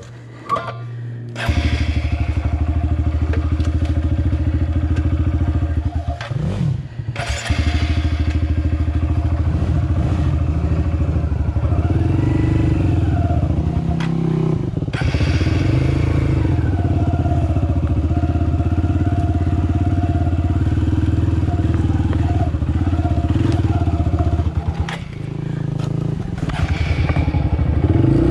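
Small off-road motorcycle engine starting up about a second and a half in and running. It cuts out briefly a few seconds later, then runs on with revs rising and falling and dips once more near the end.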